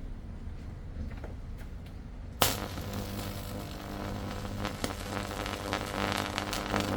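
Microwave oven transformer switched on with a sharp snap about two and a half seconds in, then a steady mains buzz with dense crackling as its high voltage arcs and burns across an LED strip. The buzz and crackling cut off near the end.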